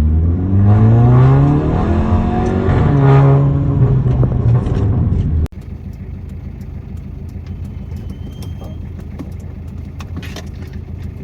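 A motor vehicle's engine accelerating, its pitch rising over a couple of seconds and then holding, over traffic noise. About five and a half seconds in it cuts off abruptly to quieter, steady road noise with scattered clicks.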